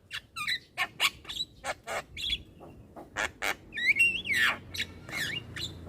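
Young Javan myna chattering: a quick run of harsh chips and clicks, with a whistled note that rises and falls about four seconds in and another shorter one about a second later.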